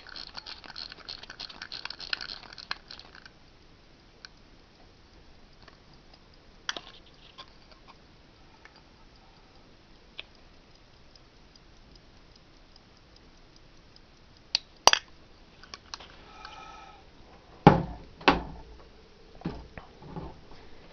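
Fast ratchet clicking of an Elgin 18S pocket watch being stem-wound by its crown, stopping about three seconds in. After that come scattered single clicks and two louder knocks near the end from handling the watch.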